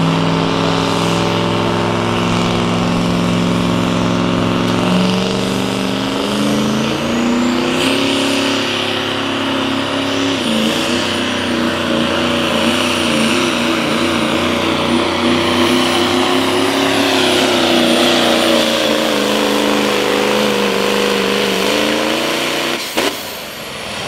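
Turbo-diesel Chevrolet Silverado pulling truck under full throttle hauling the pull sled. The engine note climbs, a high turbo whistle comes in about a third of the way through, and the pitch then sinks gradually as the sled's load drags the truck down. Near the end there is a sharp break as the pull ends.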